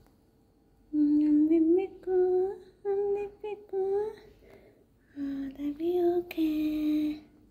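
A woman humming a slow tune in short phrases of a few notes each, with a pause in the middle. There is a brief click and a scratchy rustle about three-quarters of the way through.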